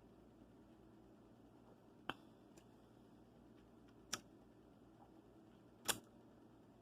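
Near silence broken by three short, faint clicks about two seconds apart.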